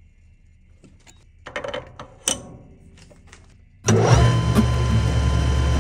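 A few light knocks and clicks, then about four seconds in a 13x40 manual metal lathe starts up suddenly and runs steadily, with a low hum and a thin high whine from its motor and gearing.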